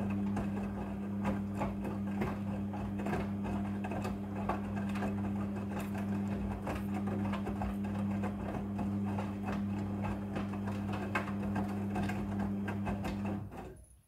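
Midea front-loading washing machine tumbling a wet load during its wash action: the drum motor hums steadily while the clothes slosh and thump against the drum. The motor stops suddenly near the end as the drum pauses between turns.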